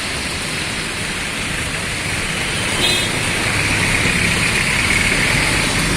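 Steady road traffic noise, cars passing on a wet road with a continuous hiss that grows a little louder in the second half, and a short beep about three seconds in.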